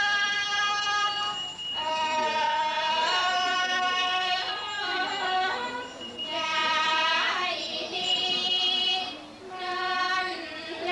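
Thai classical piphat music for a hun krabok rod-puppet show: a single high melody line of long held notes that bend and waver, phrase after phrase.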